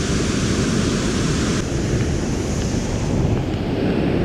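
Steady rush of wind buffeting the microphone over moving water, with no distinct events. The upper hiss thins out about a third of the way in.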